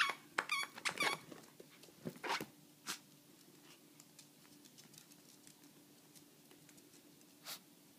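Small dogs scuffling over plush toys on a hardwood floor: scattered clicks and taps of claws and toys, mostly in the first three seconds and once more near the end, over a faint steady hum.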